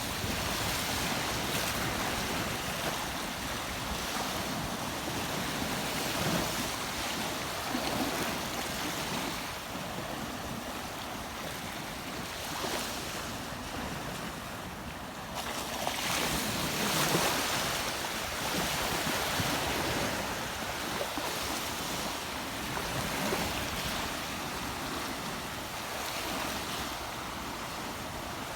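Rushing river water: a steady wash of noise that swells and eases, loudest a little past halfway.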